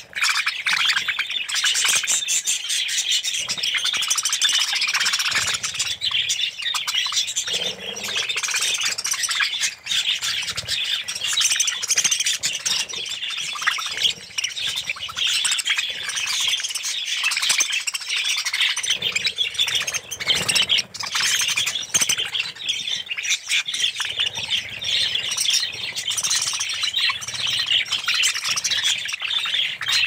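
A large flock of budgerigars chattering without a break, a dense mass of many overlapping high chirps and squawks.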